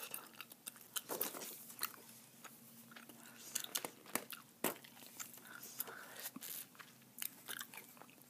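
Gum chewing close to the microphone: irregular soft clicks and smacks of the mouth, a few a second.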